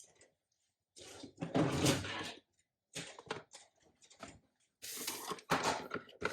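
Handling noises: a rustle lasting about a second and a half, starting about a second in, then a few short rustles and knocks.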